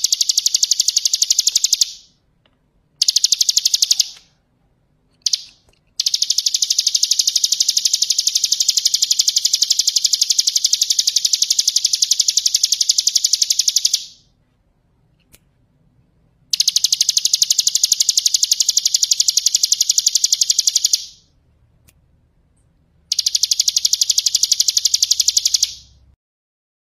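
Ciblek gunung (hill prinia) singing in long, very rapid buzzing trills. It sings five bursts, the longest about eight seconds, with short silent pauses between them.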